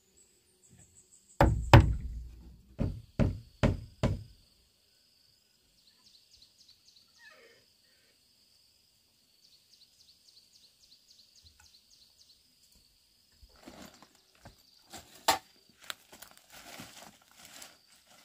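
An axe used as a hammer knocks six heavy blows into a wooden plank door. A faint rhythmic high chirping of insects follows, then loose wooden offcuts clatter and knock as they are picked up, with one sharp knock partway through.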